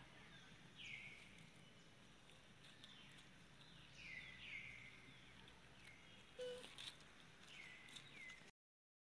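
Faint short high-pitched calls, each falling in pitch, repeated about eight times at uneven gaps of half a second to a couple of seconds, over a low steady outdoor background, with a single short knock about two-thirds of the way through. The sound cuts out completely just before the end.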